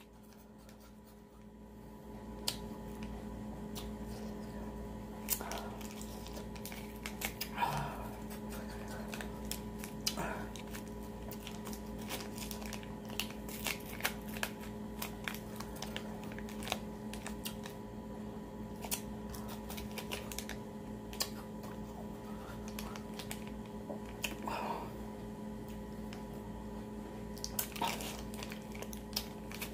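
Plastic freeze-pop sleeve crinkling as it is squeezed and eaten, with scattered small clicks and a few soft rustles, over a steady low hum.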